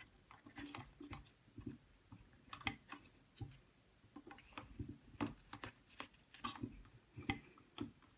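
Faint, scattered clicks and taps of a 120 roll-film spool being handled and fitted into the spool chamber of a twin-lens reflex camera, with a few sharper taps a little past the middle.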